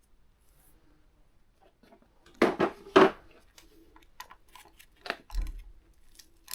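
Workshop handling of small hand tools and engine parts: two sharp hard clacks about half a second apart, then scattered lighter clicks and a soft low thump.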